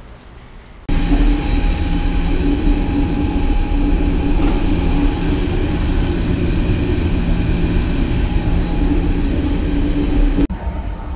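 Berlin S-Bahn electric train running, heard from inside the carriage: a loud, steady rumble with a steady hum over it. It starts suddenly about a second in and cuts off near the end.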